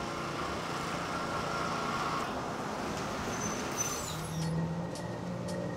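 City street traffic, with a bus pulling up close at the stop and its engine running, a low hum that comes in about four seconds in.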